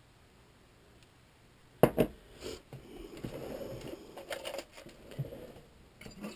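Two sharp knocks, then a soft, uneven crackling patter as salt goes into a pot of near-boiling water.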